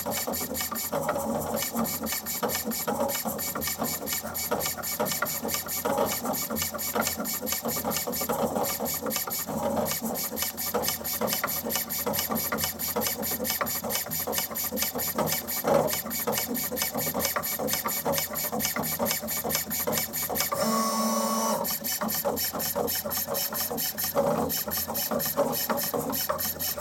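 Roland EGX-350 engraving machine raster-engraving a fountain pen barrel: a fast, steady stream of mechanical ticking as the tool works across the pen. About three-quarters of the way through, the ticking gives way for about a second to a steadier hum, then resumes.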